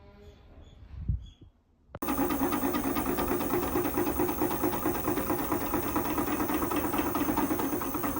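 A low thump about a second in, then a machine starts abruptly and runs steadily with a rapid buzzing pulse.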